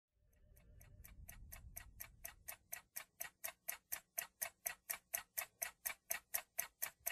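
Ticking-clock effect opening a dance remix: quick, even ticks, about five a second, that fade in from faint and grow steadily louder.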